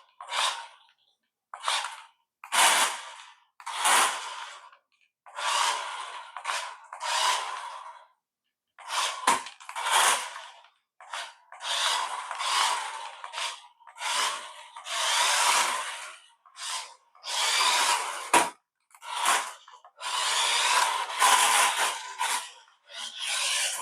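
Toy-grade RC car's small electric motor whirring in repeated short bursts of on/off throttle, each under two seconds, with a steady whine in each burst; the lightweight car spins its wheels on each burst.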